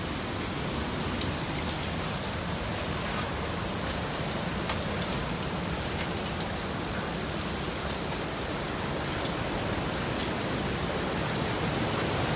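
Steady rain falling, with scattered sharp drip ticks.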